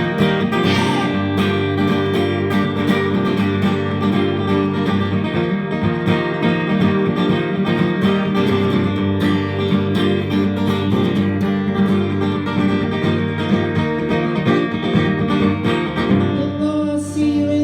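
Live band playing an instrumental break of a folk-rock song, led by strummed acoustic guitar with other plucked strings, at a steady driving rhythm.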